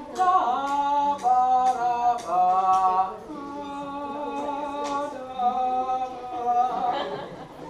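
School string orchestra of violins, violas, cellos and basses playing together in long held notes, several pitches sounding at once.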